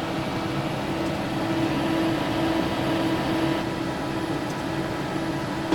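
Steady ventilation hum, like an air-conditioning fan, running with a few constant droning tones and no change in pitch.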